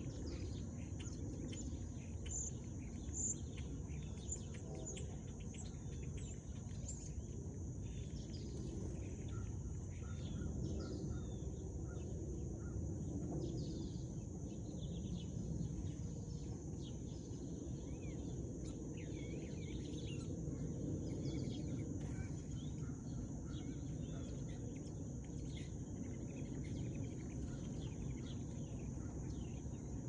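Sparrows chirping in many short calls throughout, over a steady high-pitched insect drone and a low background rumble.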